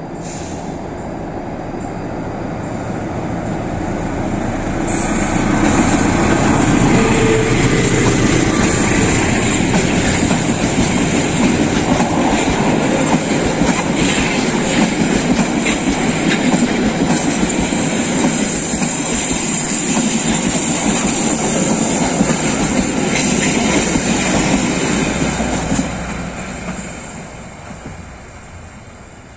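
Diesel-hauled passenger train passing close by: the locomotive and its coaches rumble over the rails with wheel clatter. The sound builds over the first few seconds, stays loud while the coaches go past, and fades near the end as the last car moves away.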